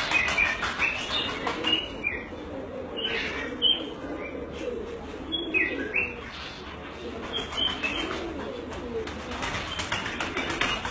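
Doves cooing in a repeated low call, with many short high chirps from other small birds over it.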